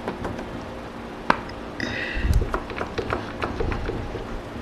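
Steel gib and saddle parts of a Burke #4 horizontal milling machine handled by hand: a sharp metallic click about a second in, then a brief scrape and a run of small clicks and taps as the gib is worked in its dovetail.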